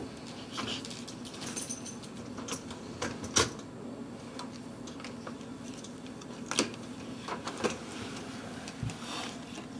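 Plastic-coated wire dishwasher racks rattling and clicking as they are handled and pulled, in scattered knocks, the loudest about a third of the way in. A steady low hum runs underneath.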